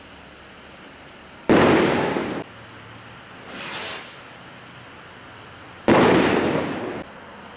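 Standard Fireworks Maverick stick rockets: one rocket bursts with a sharp bang about one and a half seconds in, which dies away over about a second. The next rocket goes up with a short high whoosh around three and a half seconds in, then bursts with a second loud bang at about six seconds.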